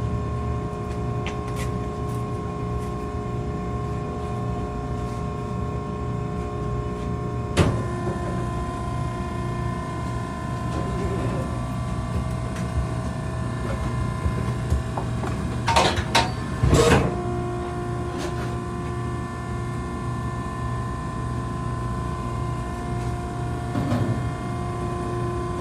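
Maren baler's hydraulic power unit running with a steady whine over a low motor hum. A sharp knock about a third of the way in changes the whine's pitch, a few metallic clanks come about two-thirds of the way through, and the original tone returns after them.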